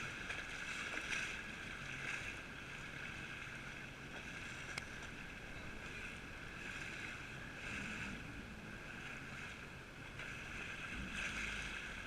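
A jet ski's engine running slowly, a steady hiss and hum mixed with lapping water, swelling and easing every few seconds.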